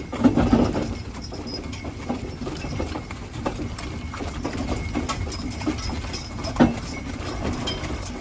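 Hooves of a pair of Haflinger horses clip-clopping as they pull a wagon, an irregular run of knocks over a steady low rumble. One knock stands out about six and a half seconds in.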